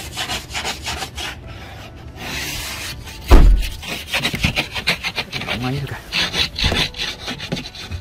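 Rubbing and rustling handling noise on the phone's microphone in quick rasping strokes as someone climbs into a car's driver's seat. A single heavy low thump comes a little over three seconds in.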